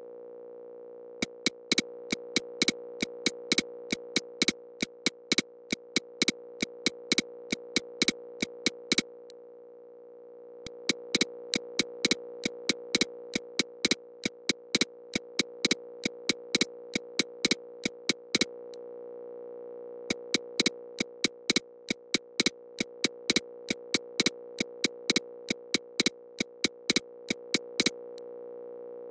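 Electronic EMDR audio: a held synthesizer drone chord that slowly swells and fades, under a steady train of sharp clicks at about four a second. The clicks stop briefly three times, for one to two seconds each.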